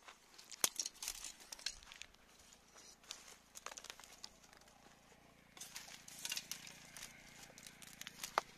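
Dry straw stubble crunching and crackling underfoot in irregular clicks, thickest about six seconds in. A faint steady low hum, the tractor's diesel engine, comes in about halfway.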